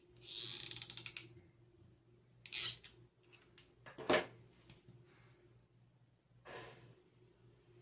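Faint handling noises of hands working with a ribbon bow and a small pompom on a tabletop: a rapid run of fine clicks lasting about a second, then two short rustles and one sharp tap near the middle.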